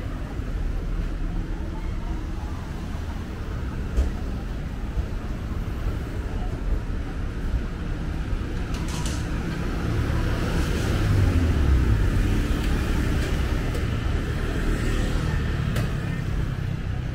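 Street traffic: motor vehicles running past in a steady low rumble, with one passing louder and closer about two-thirds of the way through.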